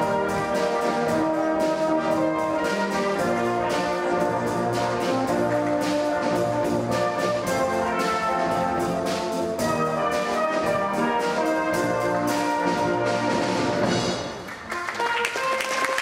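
Orchestral music with brass and a steady beat. Near the end the music breaks off briefly and applause starts.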